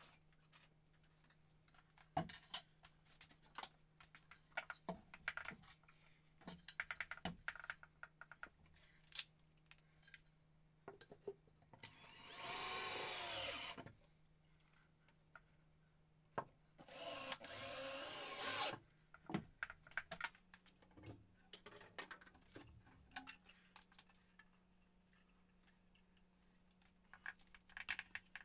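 Cordless drill running in two bursts of about two seconds each, near the middle, fastening a wooden board up to a ceiling joist. Scattered light knocks and clatter of handling come before and after.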